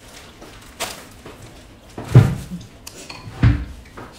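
Cutlery and dishes clinking and knocking on a dining table, with two loud knocks about two and three and a half seconds in.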